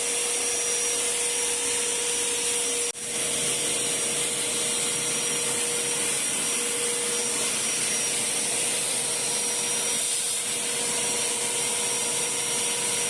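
INGCO 1200W wet & dry vacuum cleaner running steadily with a constant whine, its dry-surface floor nozzle being worked over carpet. The sound cuts out for an instant about three seconds in.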